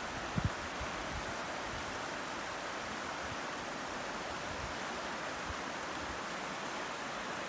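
River water rushing steadily over a stony bed, with a brief low thump on the microphone about half a second in.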